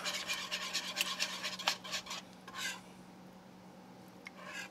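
Wire whisk beating a thick cheese sauce in a nonstick skillet, its wires scraping and clicking against the pan in rapid strokes. The whisking stops about two and a half seconds in, and there is a light tap near the end.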